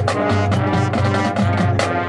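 High school marching band playing: sustained brass chords over repeated drum hits.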